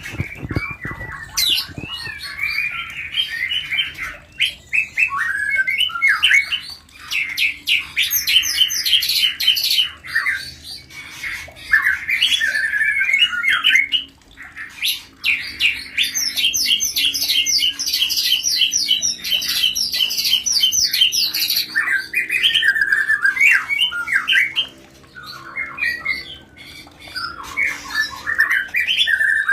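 White-rumped shamas (murai batu) in mating chatter: dense, rapid runs of harsh notes and trills that go on almost without a break, dipping only briefly a few times.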